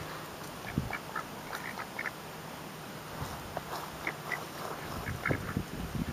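Ducks quacking: scattered short, soft calls.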